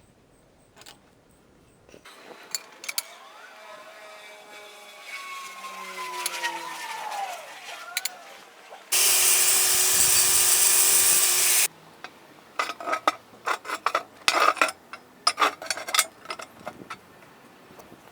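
Metalworking tool sounds: a whine that slides down in pitch, then a loud steady hiss for about three seconds, then a quick run of sharp metallic clicks and knocks.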